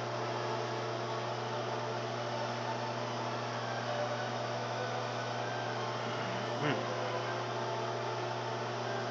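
LG microwave oven running, a steady electrical hum, with one brief click about two-thirds of the way through.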